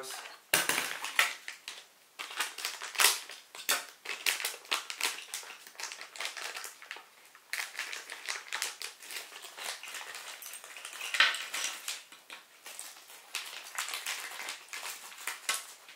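Clear plastic parts bag crinkling and crackling as it is handled and torn open, in irregular short bursts of rustle, with a knock about half a second in.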